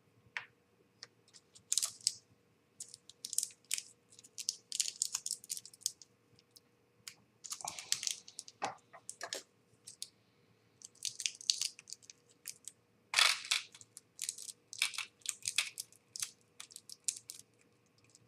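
Irregular clicks, taps and brief rustles of small model-kit parts being handled and fitted together by hand.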